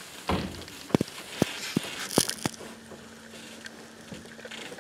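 Clothing rustling with about six sharp knocks in the first two and a half seconds: a hunter shifting with his rifle and gear inside an enclosed hunting blind.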